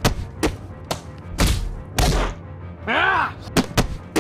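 Cartoon fight sound effects: a run of hits and thuds, the two heaviest about one and a half and two seconds in, with a short yelled cry about three seconds in.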